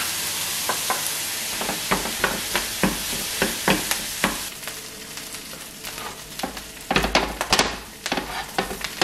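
Chicharrón filling with a splash of added water sizzling and hissing in a small frying pan while a wooden utensil stirs and breaks it up, knocking against the pan over and over. The hiss fades about halfway through, and a burst of louder knocks comes near the end.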